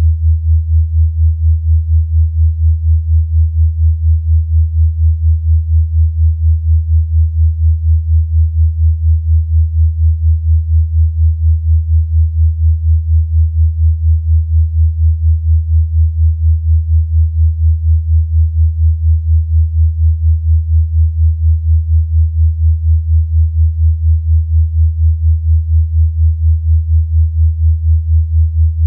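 A low, steady sine tone, a generated frequency for relaxation, pulsing evenly in loudness about three times a second.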